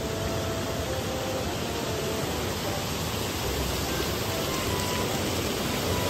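Steady rushing of a waterfall, the 10 m drop of Shokei-daru Falls on the Kawazu River, growing slightly louder, with soft background music over it.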